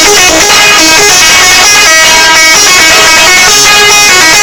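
Truck's telolet horn, a set of tuned air horns, playing a very loud, fast tune of notes that step up and down in pitch without a pause.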